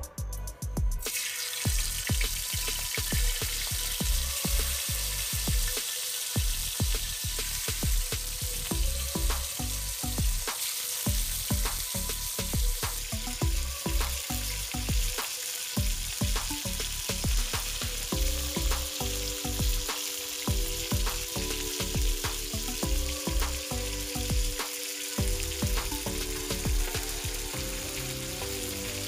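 Spice-marinated rohu fish steaks shallow-frying in hot oil in a pan: a steady sizzle with constant small spitting crackles.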